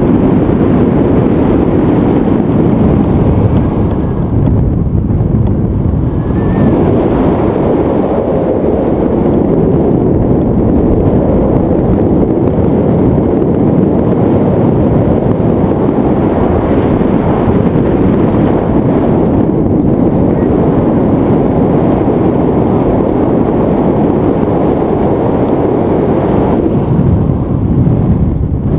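Wind buffeting a handheld camera's microphone in tandem paraglider flight: a loud, steady low rumble.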